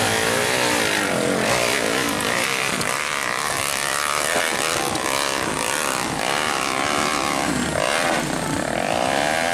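Several off-road motorcycle engines revving hard and unevenly, their pitches rising and falling and overlapping, as bikes climb a steep dirt hill under heavy load.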